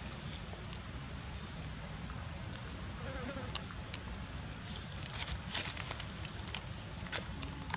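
Steady high-pitched drone of forest insects over a low rumble, with a cluster of sharp crackles about five to seven seconds in.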